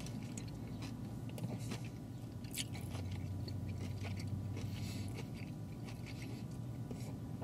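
A person chewing a bite of battered fried pickle dipped in ranch: soft mouth sounds with scattered small crunches of breading, over a steady low hum.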